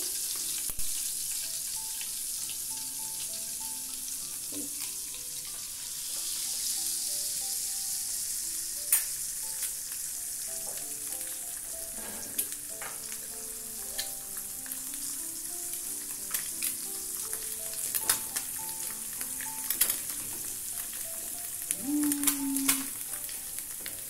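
An egg frying in hot oil in a non-stick frying pan: a steady high sizzle, with sharp taps and scrapes of a silicone spatula against the pan every few seconds, more of them near the end.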